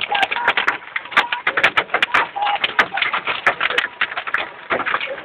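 Heavy rain drumming on a car's roof and windshield, heard from inside the cabin as a dense, irregular clatter of hard hits.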